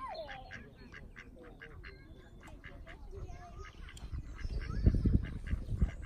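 Mallard ducks quacking, a rapid run of short calls. About five seconds in, a louder low rumbling noise comes in over them.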